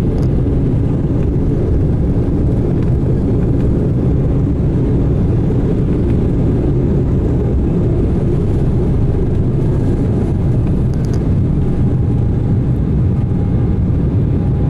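Jet airliner heard from inside the cabin during its takeoff run: a loud, steady rumble of the engines at takeoff power, continuing as the plane lifts off the runway.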